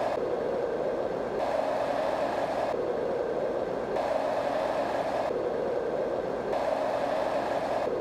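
Fan-type white noise sound machines giving a steady airy rush. The sound switches back and forth about every second and a bit between two slightly different tones, one brighter than the other, as the two machines are compared side by side.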